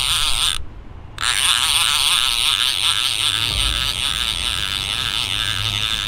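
Baitcasting reel cranked by hand, its gears giving a rhythmic whirring as line is wound in on a hooked fish, a small gar. The whirring breaks off briefly about a second in, then resumes.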